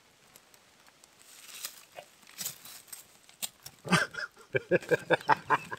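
Faint crackle and crinkle of burning paper wrappers in a fire ring. About four seconds in, a quick run of short vocal sounds, much louder than the fire.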